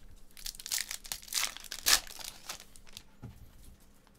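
Foil wrapper of a Prizm Draft baseball card pack being torn open and crinkled: a run of crackling rustles, sharpest just under two seconds in, then quieter handling of the cards.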